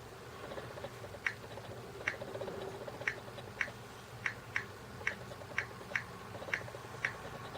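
A string of about a dozen short, sharp clicks at irregular spacing, roughly one or two a second: taps on a handheld device's touchscreen during setup.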